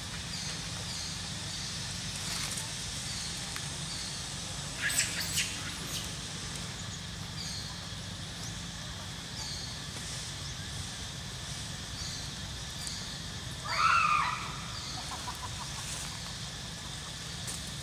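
Outdoor ambience: a short high chirp repeats about once a second over a steady low hum, with two sharp clicks about five seconds in. About fourteen seconds in comes a brief, loud squealing animal call that rises and then falls.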